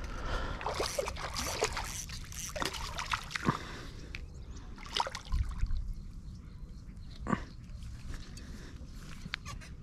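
Splashing and dripping water as a hooked bass is landed, with scattered clicks and rustles of handling, busiest in the first four seconds.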